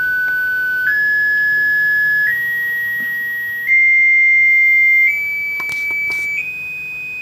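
Direct-drive telescope mount motor sounding a steady pure tone that steps up in pitch about every second and a half. This is the servo drive's current-loop auto-tune driving the motor windings through a series of test frequencies to measure the loop's bandwidth.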